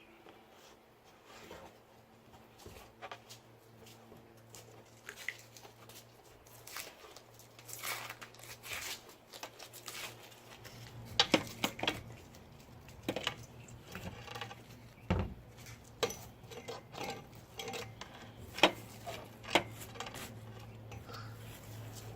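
Wrapping or covering being torn and pulled off a freshly painted steering rack, with crinkling and tearing interrupted by sharp clicks and knocks as the part is handled. The sound is sparse at first and gets busier about a third of the way in. A faint steady hum runs underneath.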